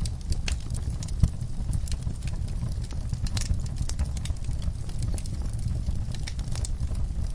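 Wood fire burning in a fireplace: a steady low rumble of flames with frequent sharp crackles and pops, one louder pop about a second in.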